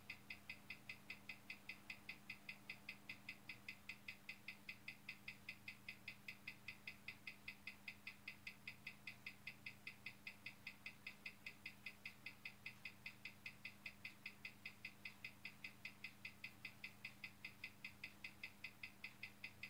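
Hamilton calibre 756 watch movement ticking evenly, about five beats a second, faint, over a steady low hum. The rate reads about plus 302, roughly 5 minutes fast a day, after the new balance was fitted.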